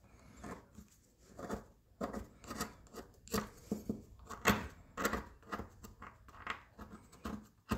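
Razor blade scraping old gasket residue off a motorcycle brake master cylinder lid: a run of short scratchy strokes, about three a second, starting about two seconds in.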